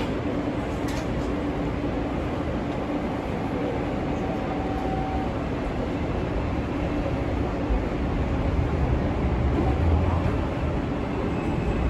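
R160B New York City subway car heard from on board: a steady hum and rumble with a brief held tone a few seconds in. The low rumble grows over the second half as the train gets under way.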